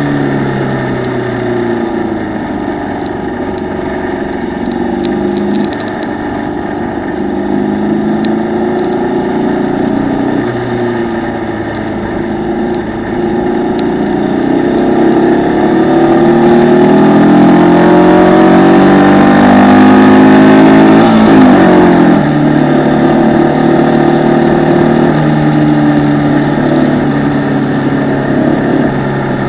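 Formula Vee racing car's engine heard from on board at racing speed, muffled by the camera's waterproof case. Its pitch climbs and drops back several times. The longest and loudest climb comes about two-thirds of the way in and ends in a sharp drop.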